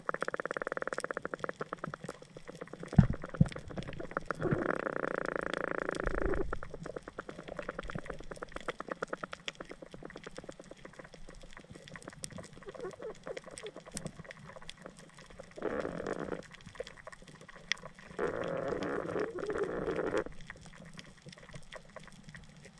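Underwater reef ambience heard through a camera housing: a dense, steady crackle of tiny clicks, typical of snapping shrimp on a coral reef, with several swells of muffled rushing water noise as the diver swims. Two sharp low knocks about three seconds in.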